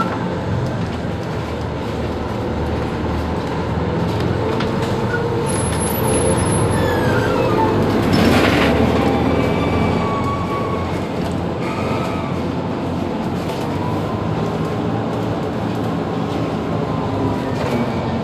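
Mercedes-Benz Citaro G C2 articulated city bus standing with its engine idling steadily. There is a brief noisy burst about eight seconds in.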